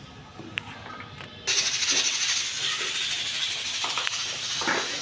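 Pressure cooker's weight valve letting off steam as the meat stock cooks under pressure: a loud, steady hiss starts suddenly about a second and a half in and keeps going.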